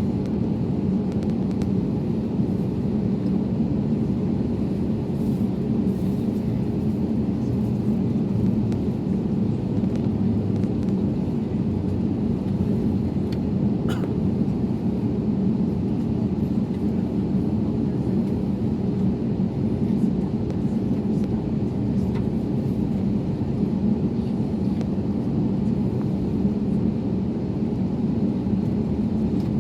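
Steady low rumble with a constant hum from an Airbus A321neo airliner, its power held even with no build-up.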